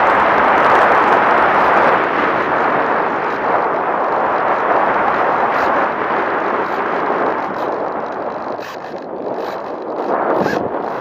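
Wind rushing and buffeting over the microphone of a camera mounted on a Bixler foam RC plane in low, banking flight. The rush slowly eases off, swells briefly near the end, then fades again.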